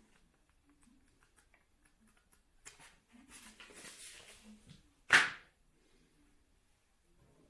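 Handling noise from unboxing a small model: light clicks and rustling of packaging, then one short, sharp, loud rasping sound about five seconds in.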